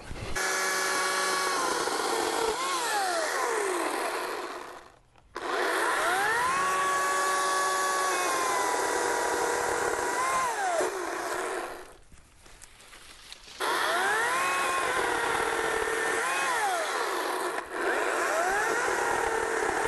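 Ryobi 14-inch 40 V brushless cordless chainsaw cutting a small hardwood tree trunk, run in three bursts with two short pauses. Its electric whine dips and recovers in pitch as the chain works through the wood.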